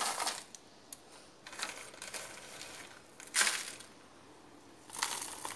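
A thin cut-down plastic PET bottle crinkling and rustling in several short bursts as it is handled around a plant stem and potting soil is dropped into it.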